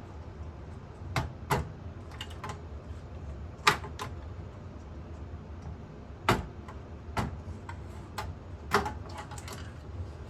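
Irregular sharp clicks and knocks, about nine in all, the loudest nearly four seconds in and just past six seconds in: plastic connectors and a pinball machine's circuit board being handled as the board is unplugged and pulled out.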